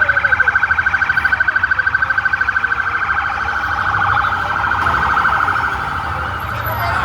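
Electronic siren sounding at a high pitch, pulsing rapidly for the first three seconds or so, then changing to a smoother, steadier tone, over a low rumble.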